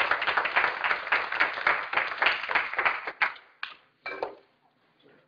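Audience applauding, dying away about three seconds in with a few last scattered claps.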